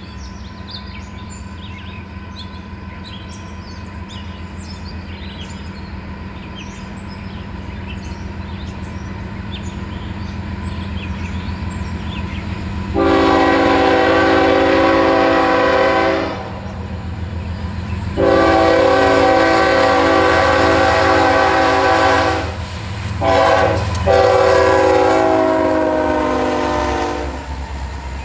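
Approaching diesel freight locomotive, its engine rumble growing steadily louder, then sounding its multi-chime air horn in four blasts (long, long, short, long), the standard grade-crossing warning.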